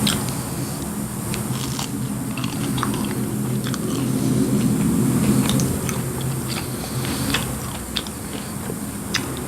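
Close-miked chewing of chicken nuggets, with scattered soft crunches and wet mouth clicks, over a steady low hum.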